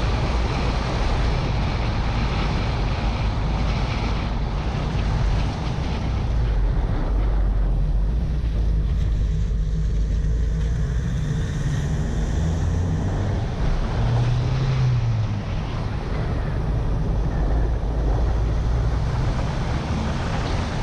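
Car engine running as the car drives along, with steady wind buffeting on the microphone and road rumble; the engine note shifts in pitch about two-thirds of the way through.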